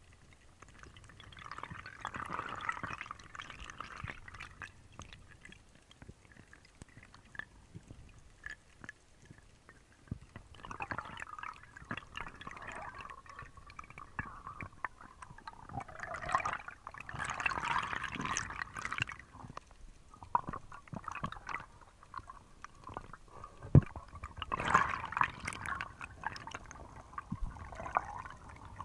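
Underwater water noise on a submerged action camera: gurgling, rushing water that comes in several surges, with scattered clicks and one sharp knock late on.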